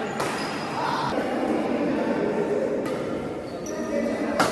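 Badminton rally: racket strings striking the shuttlecock in sharp cracks, three times, the last and loudest near the end.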